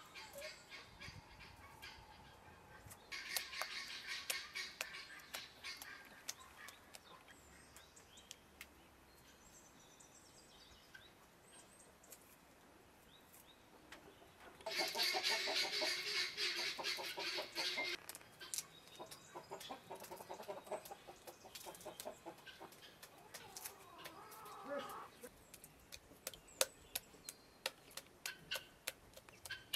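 Chickens clucking in two loud bouts, a few seconds in and again about halfway, over soft wet splashing and squelching as hands gather butter out of churned buttermilk in an aluminium pot.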